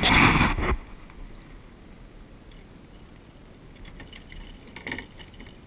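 A loud rush of handling noise on the camera microphone for under a second. Then a faint steady hiss, with a few light taps and rubs of a hand on the plastic kayak deck near the end.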